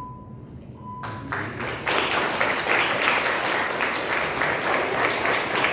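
A small group of people applauding, the clapping starting about a second in and building to full strength by two seconds. Just before it, a short steady beep.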